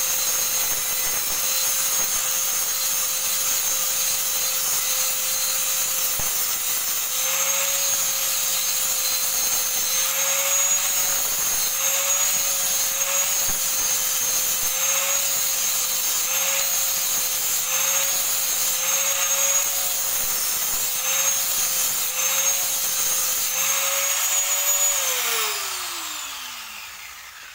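Electric angle grinder running at full speed, its disc grinding the edge of a steel piece clamped in a vise, the motor pitch dipping slightly about once a second as the disc is pressed on. Near the end it is switched off and winds down with a falling whine.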